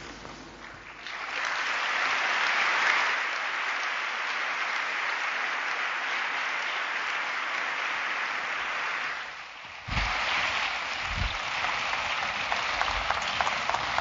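Audience applauding, building up about a second in; after a brief dip about two-thirds of the way through, the clapping resumes with separate claps more distinct, plus a couple of low thumps.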